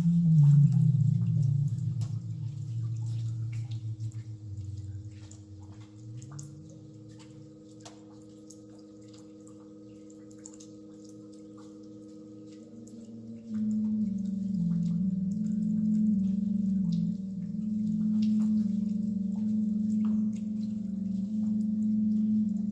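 Ambient electronic soundtrack of low, pure synth tones that step from pitch to pitch, with scattered faint clicks like drips. It sinks to a quiet hum after a few seconds and swells back up about thirteen seconds in, its tone now a little higher.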